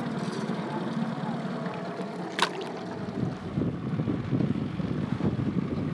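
Fishing boat on the river: a steady engine and water hum with wind buffeting the microphone, the buffeting heavier from about three seconds in, and one sharp click about two and a half seconds in.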